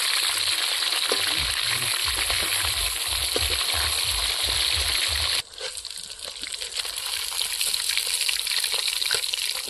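Fish pieces sizzling as they fry in hot oil in an iron kadhai, with a metal spatula turning them. The loud, steady sizzle drops suddenly a little past halfway to a quieter crackling sizzle; a few low thuds sound in the first half.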